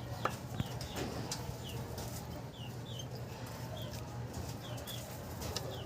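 A bird calling in short, falling chirps, about two a second, over a low steady hum and a few light clicks.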